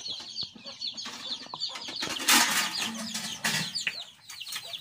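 Chickens clucking and peeping, with quick high chirps repeating throughout. A short rustling hiss comes a little over two seconds in.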